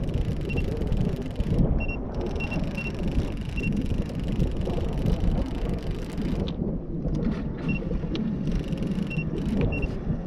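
Steady low rumbling noise, typical of wind buffeting the microphone, with about eight short, high double beeps scattered through it and a few sharp clicks in the second half.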